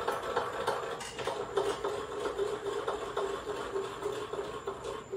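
Hand-cranked screw jack of a manual outboard jack plate being wound, shifting the outboard motor's height: a steady mechanical whir with many small clicks from the turning crank and screw.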